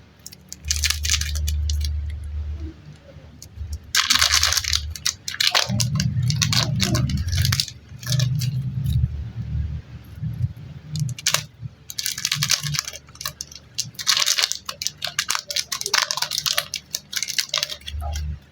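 Close-up handling of clay packs: crinkling and crackling of plastic packaging in repeated bursts, over dull low thumps of the pack and clay being pressed and handled.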